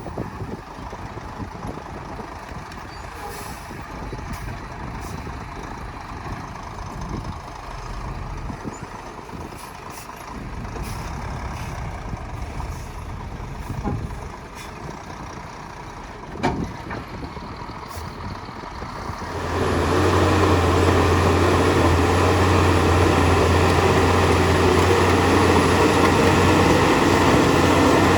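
Heavy diesel earthmoving machinery running, with scattered knocks and clanks. About two-thirds of the way through, a much louder diesel engine comes in and runs steadily with a low drone.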